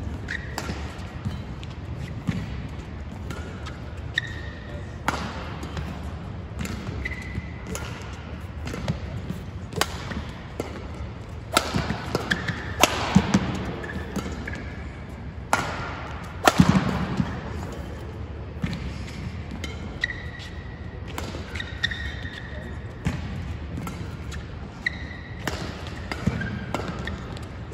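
Badminton rally: rackets striking the shuttlecock at irregular intervals, the hardest smash-like hits about halfway through, with short squeaks of shoes on the court mat and footfalls between shots.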